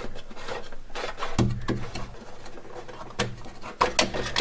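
Insulated wire rustling and scraping as it is fished through a hole in the hood's inner sheet-metal panel, with a handful of sharp clicks and taps along the way.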